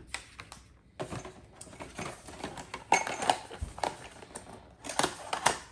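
Cardboard packaging being handled as an inner box is lifted out of a retail box: rustling and scraping with a run of small taps and clicks. The sharpest clicks come about three seconds in and again near the end.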